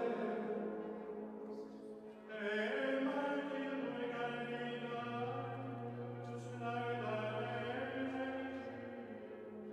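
Gregorian chant sung by a choir of Benedictine monks, slow held notes in men's voices. One phrase fades out and a new one begins about two seconds in.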